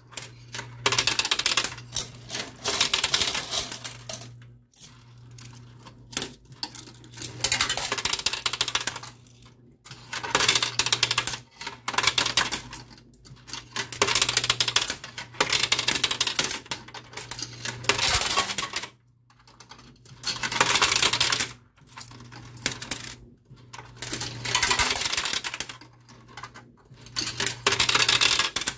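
Quarters clattering in a coin pusher machine, in repeated metallic bursts every couple of seconds, over a steady low hum.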